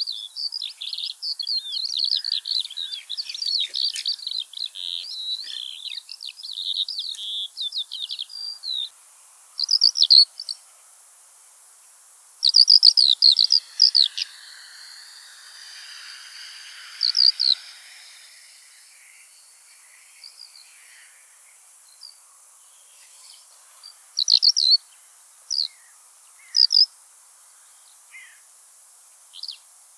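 Eurasian skylark singing: a fast, unbroken stream of high notes for about the first nine seconds, then short separate phrases every few seconds.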